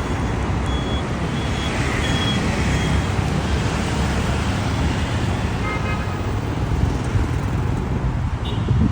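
Loud, steady outdoor rumbling noise, heaviest in the low end, with a few faint high chirps over it.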